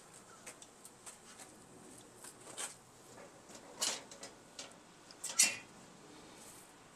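Light metallic clicks and scrapes of a sheet-metal drip tray being handled and seated in its slot under the oven, with two louder knocks about four and five and a half seconds in.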